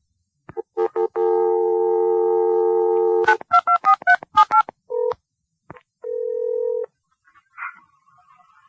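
Telephone line: a click and a few short beeps, then a dial tone held for about two seconds, then a quick run of touch-tone digits being dialed, followed by two more steady tones.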